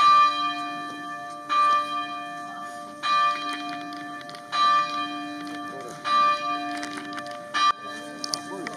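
A single church bell tolling, struck six times at an even pace of about one stroke every second and a half, each stroke ringing on until the next.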